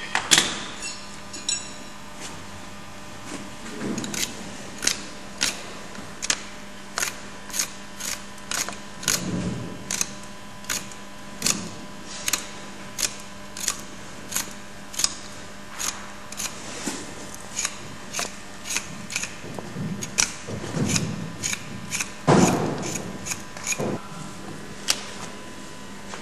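Hoof trimming on a cow: sharp cutting clicks of the tool biting into hoof horn, repeated about one and a half times a second, over a faint steady hum. A few duller knocks come in between, the loudest about three-quarters of the way through.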